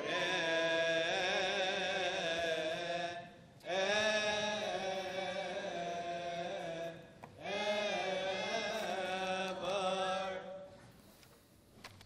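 Coptic Orthodox liturgical chant: a melismatic sung response in three long phrases with short breaks between them, dying away about ten and a half seconds in.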